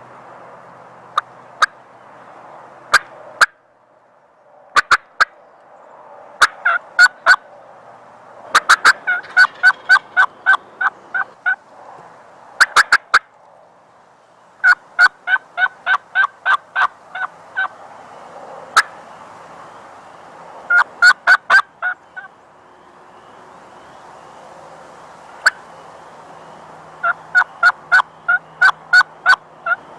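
Wild turkey yelping: loud runs of four to ten sharp, evenly spaced yelps, with single notes scattered between the runs.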